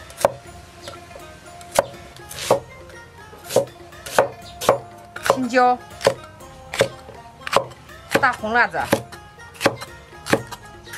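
Cleaver chopping on a thick wooden chopping block: about a dozen sharp, unevenly spaced knocks as garlic cloves and peppers are cut.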